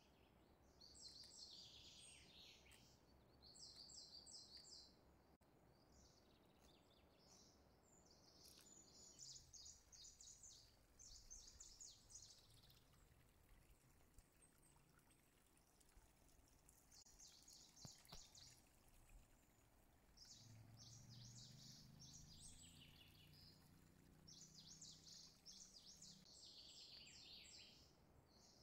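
Near silence, with faint birdsong: short high chirping trills that come in bursts every couple of seconds.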